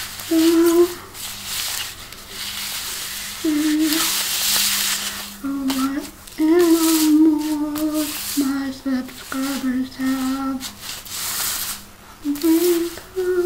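Tarot cards sliding and rustling as they are swirled and spread across a tile floor by hand. A woman hums a slow tune in long held notes over the rustle.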